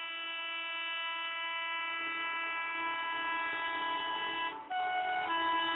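Locomotive horn of an approaching express train sounding one long, steady blast. About four and a half seconds in it breaks briefly for a short note of a different pitch, then the long blast resumes.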